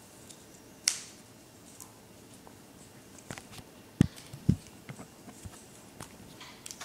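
Light clicks and taps of small mosaic pieces being handled and set on a craft butterfly, with a sharp click about a second in and two heavier knocks about four seconds in.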